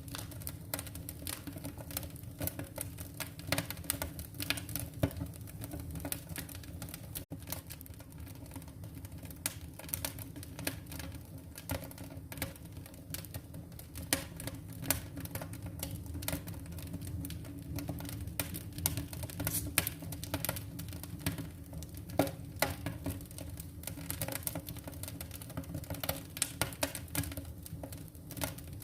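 Firewood burning in a fire, crackling with irregular snaps and pops over a steady low rush.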